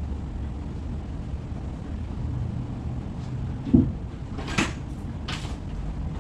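Wooden cabinet panel being worked loose and pulled free: a single knock a little under four seconds in, then two short scrapes of wood, over a steady low rumble.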